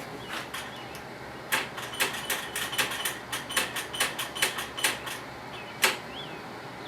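A quick irregular run of light clicks and taps, about three or four a second, then one sharper click near the end, from hands working the choke arm and its small spring on a Briggs & Stratton mower engine's carburetor linkage.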